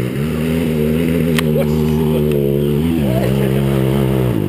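Off-road dirt bike engine running at a steady speed, dipping briefly about three seconds in and dropping again near the end.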